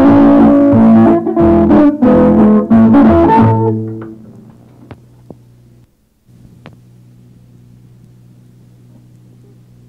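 Guitar-led amateur music on an old home cassette recording, ending about three and a half seconds in. After that only a steady low tape hum remains, with a few faint clicks and a brief dropout about six seconds in.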